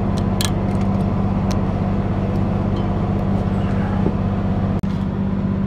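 Steady low mechanical hum, with a few light clicks in the first second and a half and a brief break about five seconds in.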